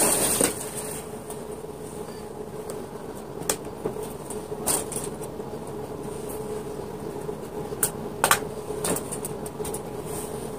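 Clear acrylic hamster-cage panels being handled and fitted together: scattered light plastic clicks and taps, the sharpest a pair about eight seconds in, with a few brief rustles, over a steady low hum.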